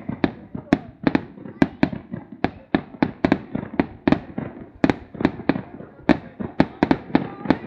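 Fireworks going off: a rapid, irregular series of sharp bangs, about three to four a second, each with a short echoing tail.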